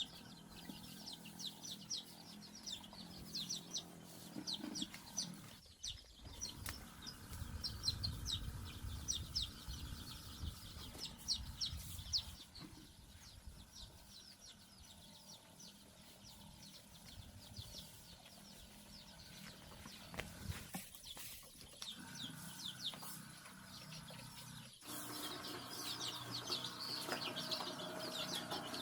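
Chickens clucking on a farm, with rapid, continuous high chirping and peeping from birds. The sound changes abruptly a few times, as if edited.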